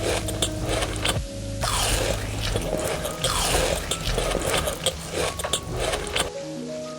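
Close-miked eating sounds: crunching, biting and scraping of food, with dense crackly clicks.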